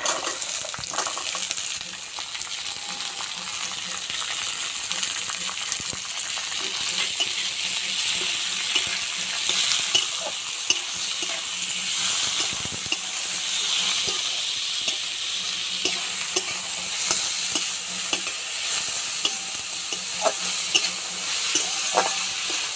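Chopped vegetables (carrot, peas, cabbage, tomato) sizzling in hot oil in a kadai, with a flat metal spatula scraping and clicking against the pan as they are stirred.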